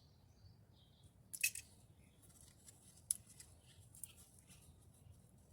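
A few faint, short clicks and scrapes of small parts being handled and pressed together during a glue repair.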